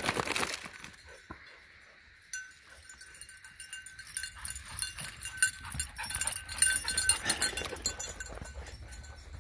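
A border collie panting rapidly in short, quick breaths.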